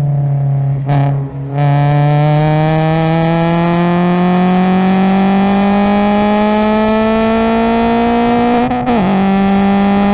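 Subaru BRZ race car's flat-four engine, with an aftermarket header and exhaust, at full throttle, heard from inside the cabin. Its pitch climbs steadily through third gear after a brief dip about a second in. Near the end the pitch drops sharply at the upshift to fourth.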